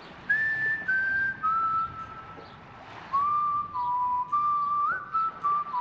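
A person whistling a slow tune: clear held notes stepping up and down in pitch, with a short pause in the middle before the melody resumes.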